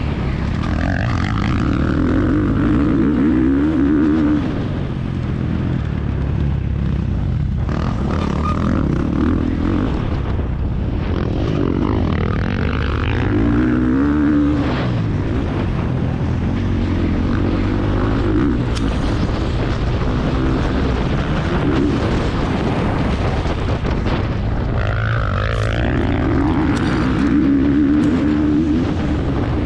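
Motocross motorcycle engine heard up close from an onboard camera, its revs climbing and dropping over and over as the rider works the throttle around the track.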